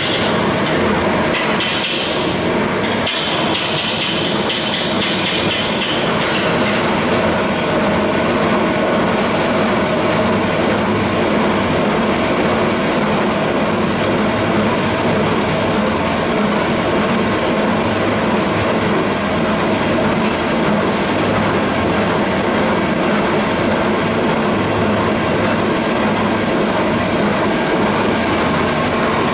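Mobile gold washing plant with a rotating trommel screen and duplex jig running: a steady mechanical clatter over a constant motor hum, with extra rattling in the first few seconds.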